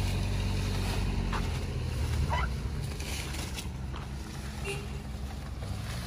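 Steady low engine hum that fades over the first two seconds or so, leaving a quieter background with a few brief faint sounds.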